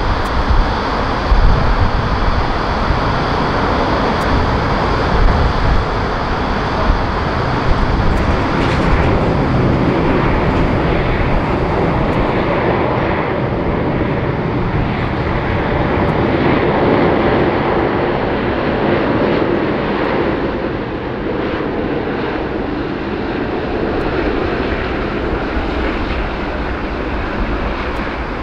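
Airbus A380 touching down and rolling out on the runway, with a loud, steady engine roar. The roar is strongest in the first dozen seconds after touchdown, then loses its hiss and eases off as the aircraft slows.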